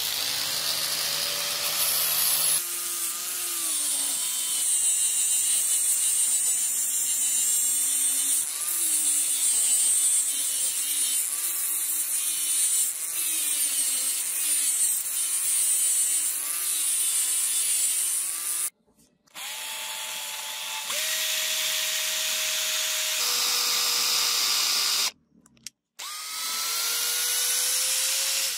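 Angle grinder with a sanding disc grinding a rusted steel sword blade, its motor pitch dipping and rising as the disc is pressed on and eased off. The sound cuts out briefly twice. Near the end a drill spins up and bores into a block of wood.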